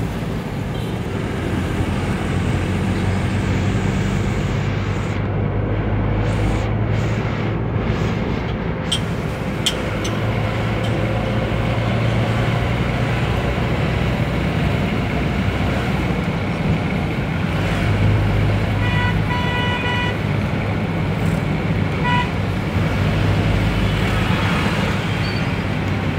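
Car engine hum and road noise heard from inside the moving car's cabin. A vehicle horn sounds in a few short toots about two-thirds of the way in, and once more briefly a couple of seconds later.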